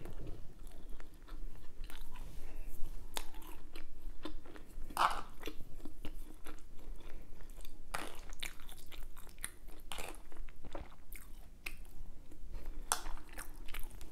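A person chewing food close to the microphone: irregular crunches and wet mouth clicks as she bites and chews.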